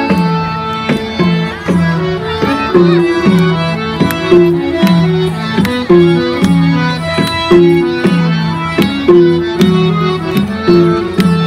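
Nepali salaijo folk tune playing, with a drum keeping a steady beat under a repeating melody of short notes, about two a second.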